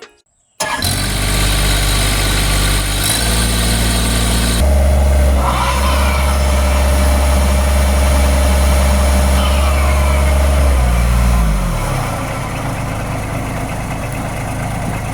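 Bobcat MT100 mini skid steer engine cuts in abruptly and runs, then runs louder and faster for several seconds with a steady whine over it. About 11 seconds in it slows down with a falling pitch and settles to a lower, steady running.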